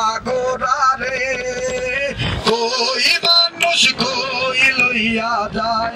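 A man singing into a microphone, his voice amplified through a loudspeaker, with held, wavering notes over musical accompaniment.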